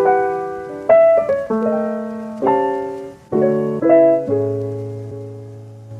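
Background piano music: a slow sequence of struck chords and notes, each left to ring and fade.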